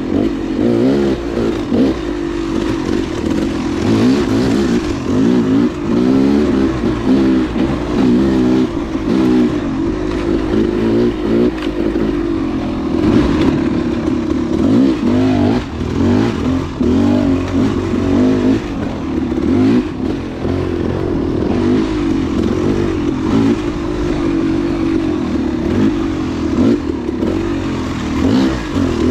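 Dual-sport motorcycle engine being ridden, its pitch rising and falling constantly as the throttle is opened and closed.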